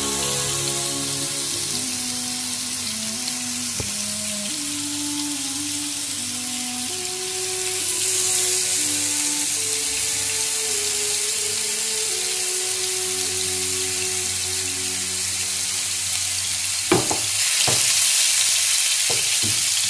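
Beef seekh kebabs sizzling as they shallow-fry in oil on a grill pan, the sizzle growing louder partway through as another kebab goes in. Two sharp knocks near the end, over soft background music.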